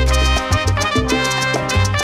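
Latin dance music in a salsa style, with a steady bass line under a full band.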